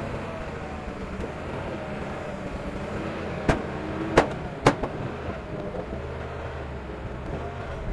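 Diesel engine of heavy earthmoving machinery running steadily, with three sharp knocks a little over half a second apart about three and a half seconds in.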